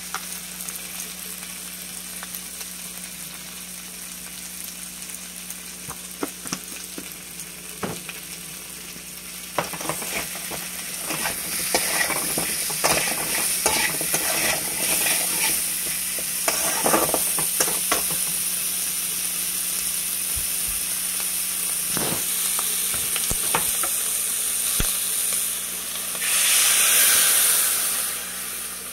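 Potato slices and radish chunks sizzling as they fry in oil in an aluminium pan, stirred with a metal spatula that scrapes and knocks against the pan, mostly in the middle of the stretch. Near the end liquid is poured into the hot pan and the sizzle surges loudly for a couple of seconds.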